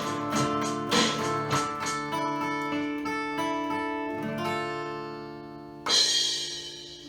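Acoustic guitar strumming the closing chords of a song. The last chord is left ringing and slowly fades. About six seconds in comes a sudden splashy crash that dies away over a second.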